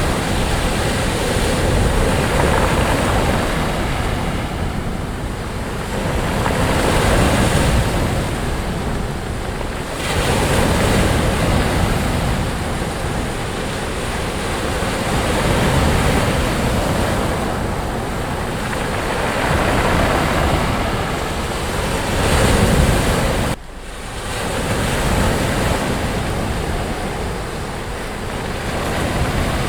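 Waves breaking and washing up on a sandy beach, a continuous surf wash that swells and recedes every few seconds. About two-thirds of the way through the sound drops away suddenly for a moment and then builds back up.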